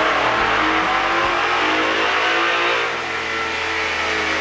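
A 2011 Mustang GT's 5.0-litre V8 revving up under load on a chassis dyno, its pitch climbing for about three seconds before the level dips briefly and the engine carries on.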